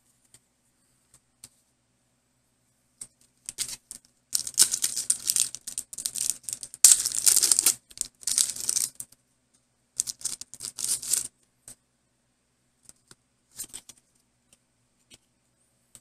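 Foil booster pack of trading cards being torn open and crinkled by hand: a run of crackling tears and rustles, loudest about seven seconds in, then only a few faint clicks.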